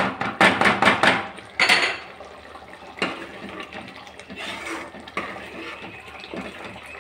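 A spatula and ladle stirring thick tamarind gravy in a wide pan: wet sloshing with the utensil scraping and knocking against the pan. It is loudest in a quick run of strokes in the first two seconds, then softer and more scattered.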